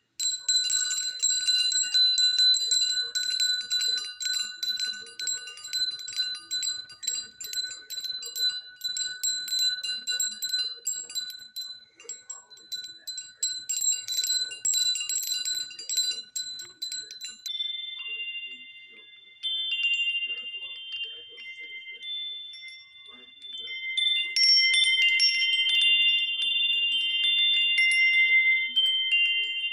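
Wind chime with silver metal tubes under a spiral wire top and a metal ball striker, ringing continuously with bright high tones. A little over halfway through it cuts off abruptly, and a second wind chime with a lower, closer-spaced set of tones takes over; it rings louder from about four-fifths of the way in.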